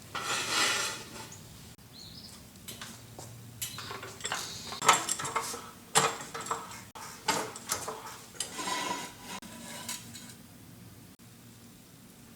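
Small metal tools or hardware being handled, clinking and clattering irregularly, with a few brief rustling swishes.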